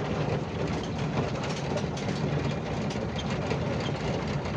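Volkswagen Kombi van driving, with steady engine and road rumble heard from inside the cabin.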